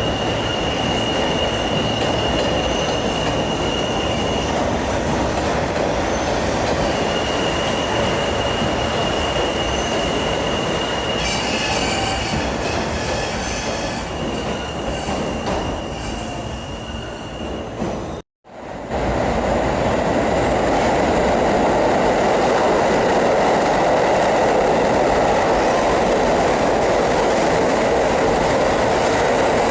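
New York City subway train in a station: a steady rumble with a high wheel squeal that comes and goes. After a brief break about 18 seconds in, a louder steady rumble of a train running.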